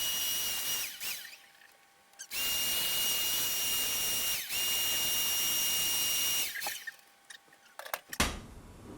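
Electric drill/driver whining in three runs: a short one at the start, then two longer ones back to back from about two seconds in, each spinning up to a steady whine and winding down.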